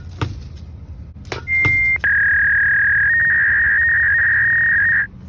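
Loud steady electronic beep tone, an added sound effect: about half a second at a higher pitch, then a lower held tone for about three seconds that cuts off suddenly near the end. Before it come a few short knocks.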